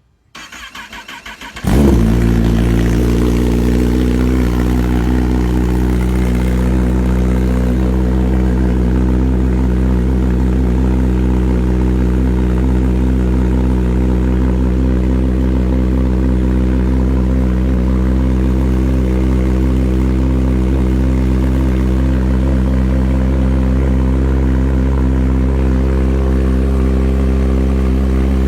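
2021 Kawasaki ZX-10R inline-four with an M4 aftermarket exhaust on a cold start: the starter cranks for about a second and a half, the engine catches with a sudden loud burst, then settles into a steady idle.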